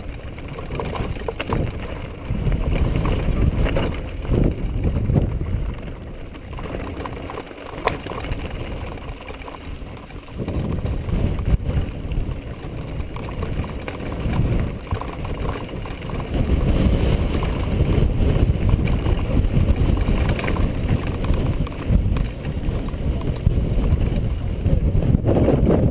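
Mountain bike descending a rocky, loose-stone singletrack: wind rumbling on the mounted camera's microphone over the clatter of the tyres and frame on the rocks, with irregular knocks as it rides over stones.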